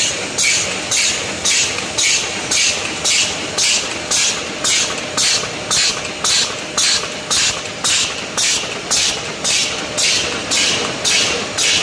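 Win 610 stand-up pouch making machine running at 114 cycles a minute: a hissing burst with every cycle, about two a second, over a steady mechanical running noise.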